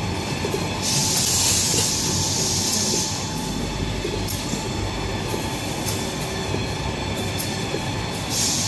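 Kitchen towel and toilet paper production line running, a steady mechanical rumble. A loud hiss starts about a second in and lasts about two seconds, and another starts near the end.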